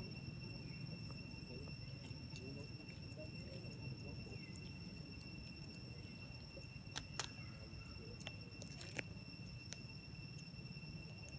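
Outdoor ambience: insects keep up a steady high-pitched drone over a low rumble, with a few sharp clicks about seven and nine seconds in.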